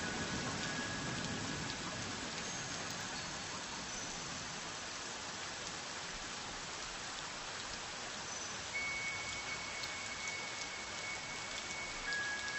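Steady, even hiss of rain falling, with a few faint, sustained chime tones held over it: one near the start and another from about nine seconds in.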